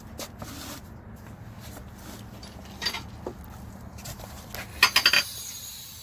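Metal clinks and clanks from hand tools and steel parts during manual tire changing: a few scattered light clinks, then a quick cluster of sharper metallic hits about five seconds in.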